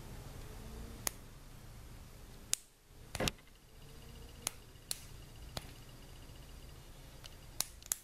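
Faint, sharp plastic clicks and snaps, about nine spread irregularly, from a small plastic quick splice (Scotchlok) connector being worked open and handled between the fingers.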